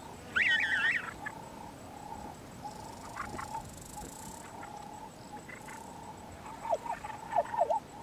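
Evening bush ambience of wild animal calls: a brief warbling bird call about half a second in, a faint on-and-off calling at one steady pitch, and a run of quick downward-sliding calls near the end.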